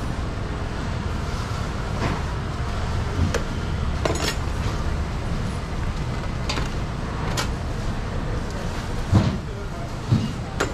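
Spoon and knife clicking and knocking now and then as a melon is seeded and cut, with two heavier thumps near the end, over a steady low rumble of traffic.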